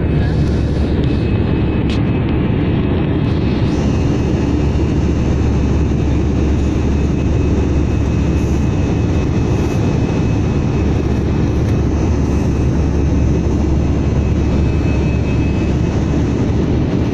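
Airliner cabin noise in flight: a steady low rumble of engine and air noise heard inside the cabin, with a faint steady high whine over it.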